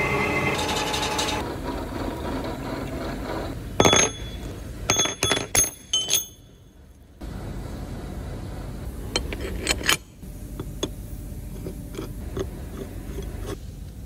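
A metal lathe running as it turns an aluminium part, then several sharp metal clinks with a brief high ring about four to six seconds in, and later a few lighter clicks over steady workshop noise.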